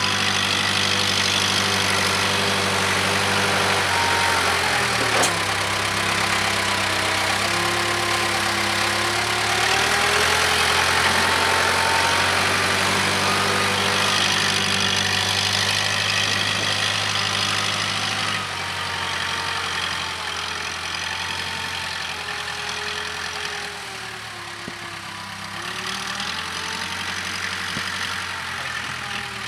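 Case 580K backhoe's diesel engine running while it works, its engine speed dipping and recovering several times. There is a single sharp knock about five seconds in, and the sound grows somewhat quieter after about 18 seconds.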